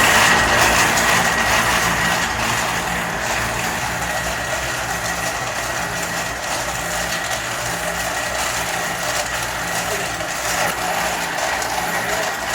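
Workshop machinery running steadily, a continuous mechanical noise with a low hum and a faint whine that fades over the first few seconds.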